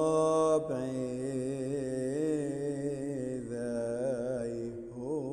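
Slow, melismatic chant: one voice holding long, wavering notes over a steady low drone, with a new phrase starting just under a second in.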